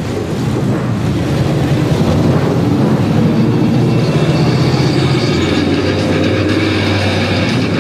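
Several super late model stock cars' V8 engines running at low speed as the cars roll past one after another at close range. The engines get louder over the first second, then hold a steady rumble.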